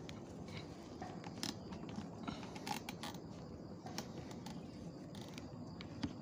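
Scattered light clicks and creaks of a scoped rifle and the camera on it being handled, over a faint steady background.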